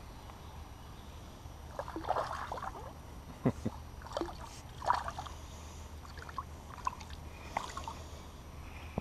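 Light water splashes and sloshing, with a few sharp knocks; the loudest knock comes about three and a half seconds in. A steady low hum runs underneath.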